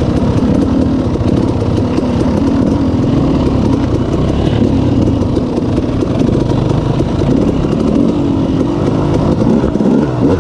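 Honda TRX250X ATV's single-cylinder four-stroke engine running steadily, its pitch wandering up and down and climbing briefly near the end.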